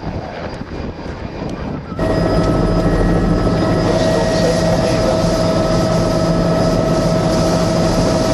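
Helicopter in flight, heard from aboard, its rotor and engine running steadily. About two seconds in, the sound jumps abruptly louder, with a steady whine over the engine noise.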